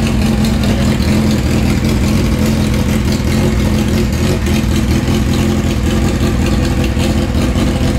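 Suzuki GSX1300R Hayabusa's inline-four engine idling steadily, loud and even with no revving.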